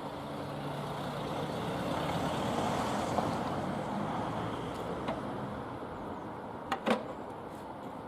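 A motor vehicle's engine running past, growing louder over the first few seconds and then fading away, with two sharp knocks close together near the end.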